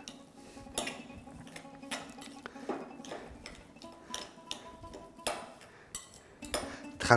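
Hands mixing a soft ground-chicken meatball mixture in a glass bowl, with scattered sharp clinks and taps against the glass.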